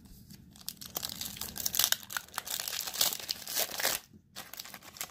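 A Panini Threads basketball card pack's wrapper being torn open and crumpled by hand: a run of crinkling, crackling tears with a short pause about four seconds in.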